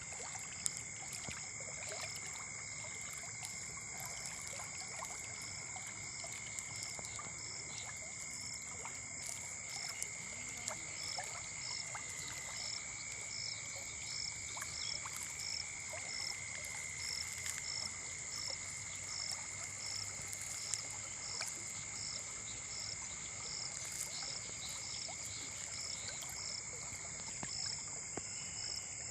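A steady chorus of calling frogs and insects, with two unbroken high trills and a higher chirp repeating at an even pace, over the steady rush of a river.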